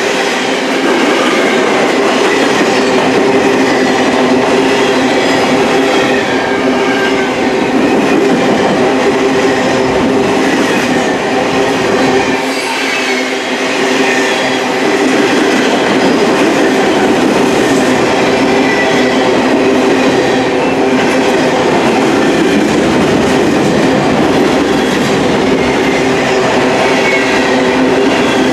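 Freight train cars rolling steadily past at close range, wheels running on the rails with faint high squealing, the sound dipping briefly about halfway through.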